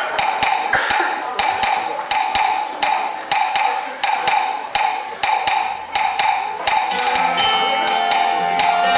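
Live band music opening with a quick, even rhythm of sharp knocking percussion, each beat carrying a short pitched note. Held notes from the band's instruments come in about seven seconds in.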